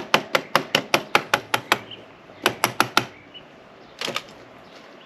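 Rapid, sharp metallic clicks, about seven a second, from a hand tool working the motorcycle's front fork tube at the triple clamp. The run stops about two seconds in, then three or four more clicks follow and one more near the end.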